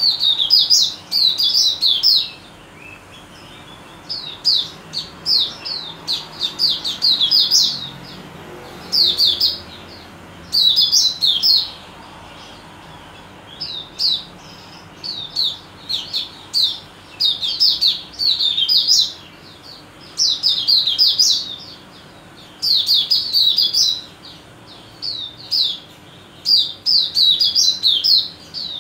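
White-eye (mata puteh) singing: bouts of rapid, high twittering notes, each a second or two long, repeated over and over with short pauses between them.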